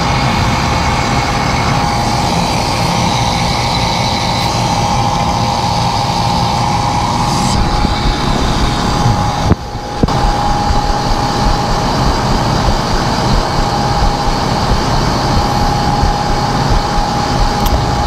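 Old R22 air-conditioning condensing unit running with its side panel off: the Copeland compressor and condenser fan give a loud, steady drone with a held hum tone. The system is running under very high head pressure from a badly fouled condenser coil. The sound dips briefly about halfway through.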